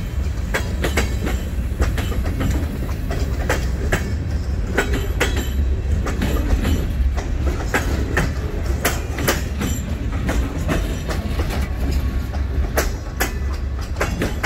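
Freight train cars rolling slowly past: wheels clacking over the rail joints in irregular clicks over a steady low rumble.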